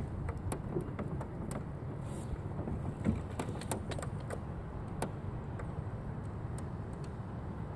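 Steady low wind rumble on the microphone, with scattered small clicks and knocks during the first five seconds or so.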